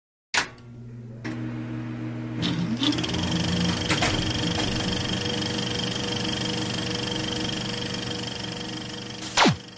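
Film projector sound effect under a logo intro: a steady mechanical whirr with a low hum and a high thin whine, a few sharp clicks in the first few seconds, and a quick falling tone near the end.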